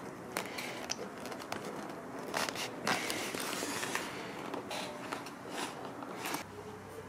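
Handling noises from a foam model-plane fuselage and its wiring being worked by hand: irregular clicks, rustles and short scrapes as parts are pressed into place and the airframe is turned over.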